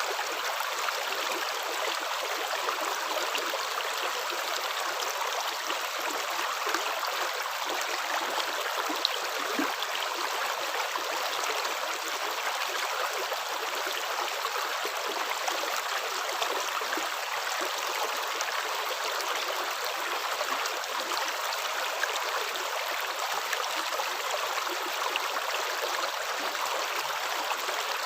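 Running water, a steady even rush like a flowing stream, with no breaks or rhythm of footsteps.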